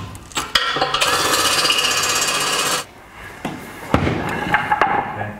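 Hammer drill running in one loud, rattling burst of about two seconds, boring an anchor hole for the air compressor's mounting, then stopping abruptly. Knocks and scraping of metal follow as the compressor is handled.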